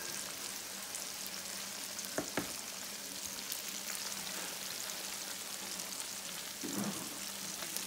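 Fish fillets frying in hot oil in a skillet, a steady sizzle and crackle, with two sharp clicks a little over two seconds in.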